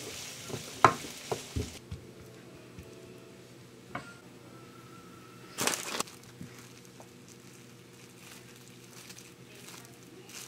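Rice sizzling in a frying pan, with a wooden spatula stirring and knocking against the pan, for about the first two seconds. Then a sheet of plastic cling wrap is handled and crinkled over the rice, with a loud rustling burst about halfway through and faint crinkles after.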